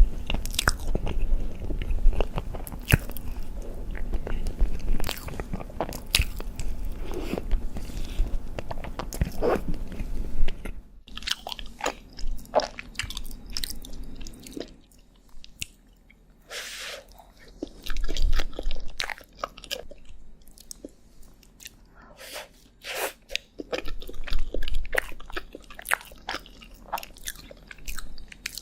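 Close-miked eating sounds of chocolate desserts: crisp bites, crunches and chewing in quick succession. About 11 s in, the low background hum drops away and the bites become sparser and softer, as a different eater's recording begins.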